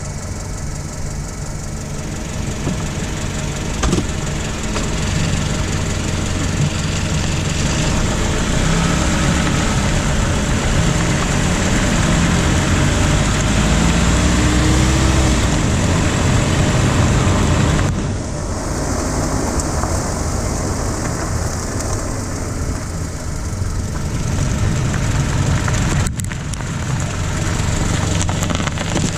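2015 Jeep Renegade running, a steady engine and mechanical hum, with a sharp pop about four seconds in. The pop is the sign of a failing plastic front sway bar end link.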